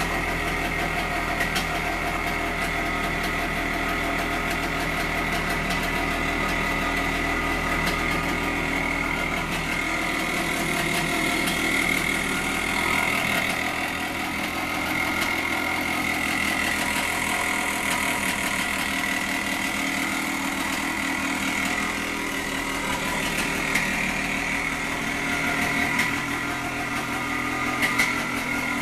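1975 Harley-Davidson SX250's two-stroke single-cylinder engine running steadily, with a few short sharp ticks near the end.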